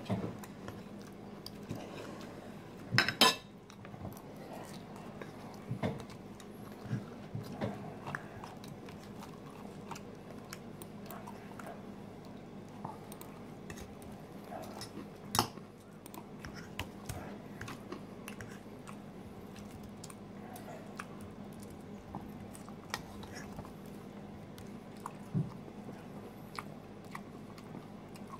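Metal fork clinking and scraping against a bowl while salad is picked up and chewed, with the sharpest clinks about 3 seconds in and near the middle. A faint steady hum runs underneath.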